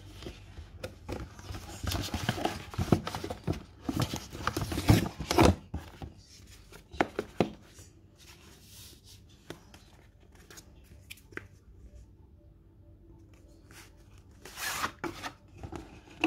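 A paper shopping bag rustles and crinkles as cardboard jewellery boxes are pulled out of it and handled. The busiest rustling comes in the first few seconds, then come a few light knocks and clicks of box on table, and another short rustle near the end.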